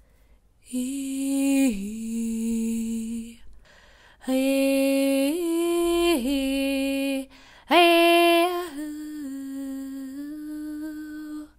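A voice toning three long, wordless held notes, each bending to a new pitch partway through before holding again, in a light-language chant.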